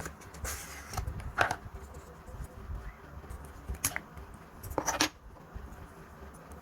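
Hands handling plastic-wrapped cosmetic boxes: a few short sharp scrapes and clicks, about a second and a half in, near four seconds and around five seconds, over low bumps of handling.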